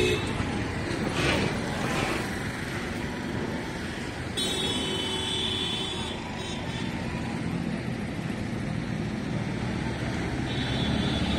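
Street traffic noise, a steady rumble of passing vehicles. A vehicle horn sounds for over a second about four seconds in and again near the end.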